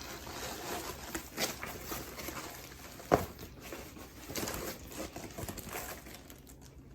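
Rustling, scraping and small clicks of packaging being handled and opened, with one sharp knock about three seconds in.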